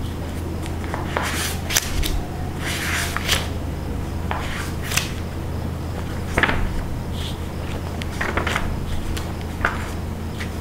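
A steady low hum, with scattered small clicks, taps and rustles over it. A few sharper clicks stand out about two, three, six and ten seconds in.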